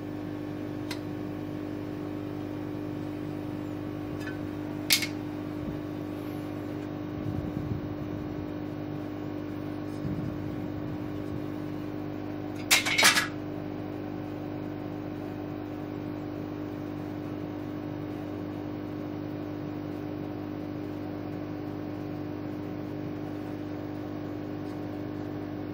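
A steady machine hum with one strong pitch, broken by a sharp click about five seconds in and a quick double clatter about thirteen seconds in as a metal tin is handled on the rotary engraver's rollers.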